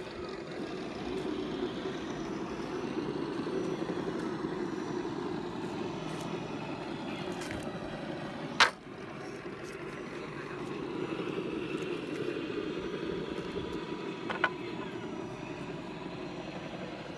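Radio-controlled scale crawler truck's electric motor and gears whirring with a slight rising and falling whine as it crawls over wooden plank ramps. A sharp knock about halfway through is the loudest sound, with a lighter knock near the end.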